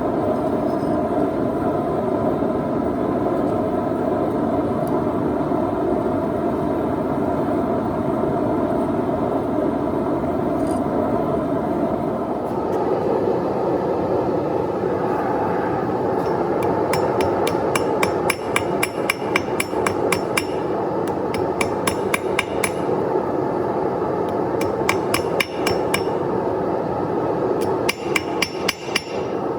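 Hand hammer striking hot steel on an anvil in quick runs of blows, several a second with short pauses, over a steady rushing noise that runs throughout; the hammering starts about halfway in.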